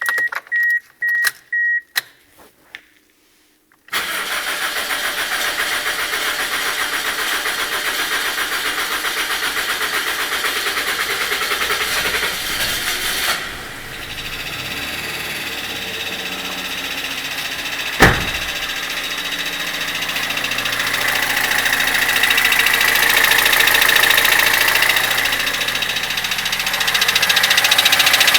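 A few short electronic chime beeps, then the Toyota Corolla Fielder's engine starts about four seconds in with a rattling knock from the VVT-i coupling (cam-timing sprocket) on start-up. About thirteen seconds in the noise drops and settles into steady idling, with one sharp click later on.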